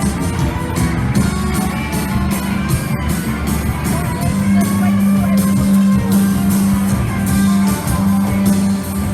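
Music with guitar and a steady beat over a strong, sustained bass line.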